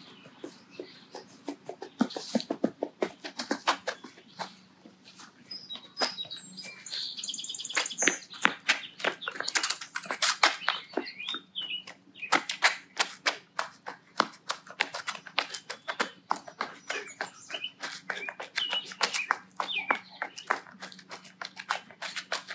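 Rapid footfalls and shoe scuffs on grass and asphalt, and taps of a ball being dribbled, ending with jumping-jack landings. Birds chirp in the background.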